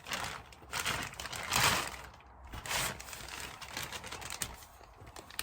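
Packaging crinkling and rustling as a delivery parcel is opened and its contents pulled out, in several rustling bursts, the loudest about a second and a half in.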